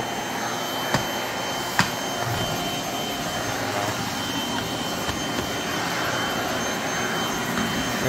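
Canister vacuum cleaner running steadily with its floor brush on a hardwood floor: an even rush of air with a faint, steady high whine. Two short sharp clicks come about one and two seconds in.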